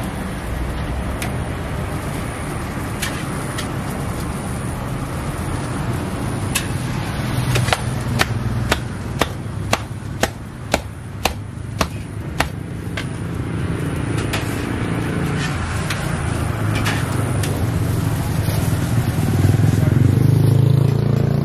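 Cooked roti canai being clapped between the hands to fluff up its flaky layers: about ten sharp slaps, roughly two a second, in the middle of the stretch, over a steady low rumble of traffic.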